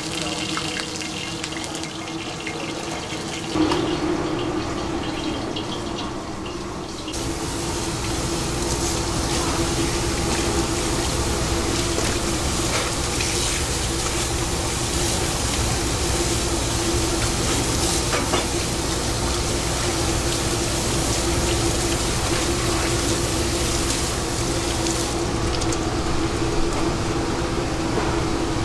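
Tap water running into a stainless-steel kitchen sink and splashing over a steel bowl as hands rinse raw eel pieces, starting about seven seconds in. A single knock comes about three and a half seconds in, and a steady hum runs underneath throughout.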